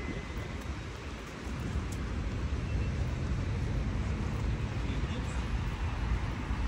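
Steady low outdoor rumble with a hiss above it, growing a little louder about a second and a half in.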